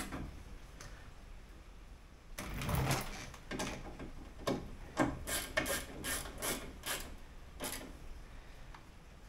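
Bolts being tightened with a hand tool inside the bare steel door of a Toyota Corolla KE20, fixing the window glass in place. A run of irregular clicks and scrapes starts about two seconds in and dies away near the end.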